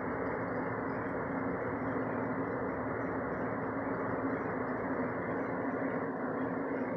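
Steady rumble of a jet airliner flying high overhead, even in level, with a low hum running through it.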